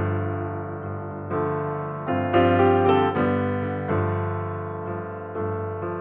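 Background piano music: held chords with new notes struck about once a second.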